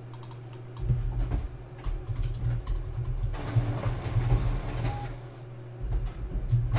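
A quick, irregular run of light clicks and taps from hands working at a desk, with some rubbing, over a steady low hum.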